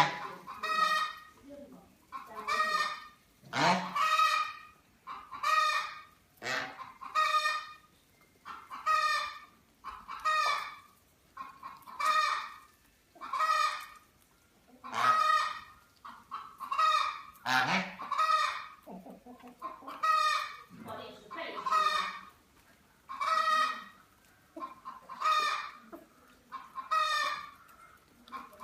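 Domestic geese honking over and over, a short nasal call about once a second. Now and then another fowl's call is mixed in.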